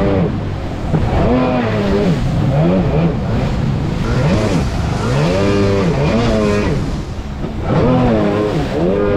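Jet ski engine revving up and down again and again, its pitch rising and falling about every second or two as it rides through big waves, over a steady rushing noise.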